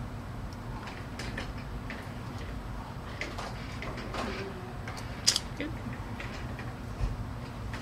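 Steady low hum with scattered light clicks and taps, the sharpest about five seconds in and a softer knock near the end.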